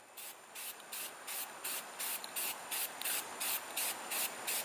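Aerosol can of brown spray paint being sprayed onto a wooden bow in short, quick bursts of hiss, about three a second.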